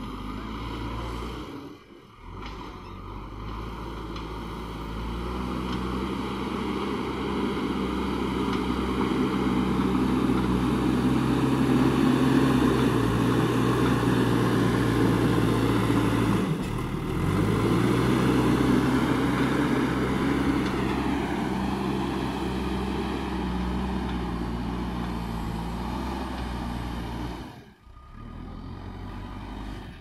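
JCB 3DX backhoe loader's diesel engine running under load as it digs and loads soil. The engine note climbs over the first several seconds and is held high, breaks off for a moment a little past halfway, then picks up again and eases off toward the end.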